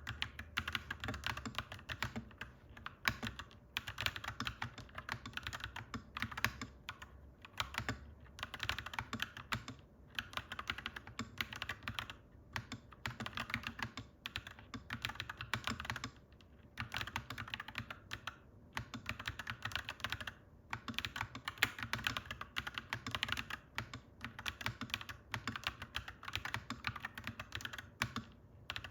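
Typing on a clacky mechanical keyboard: rapid keystroke clicks in runs of a few seconds, broken by short pauses.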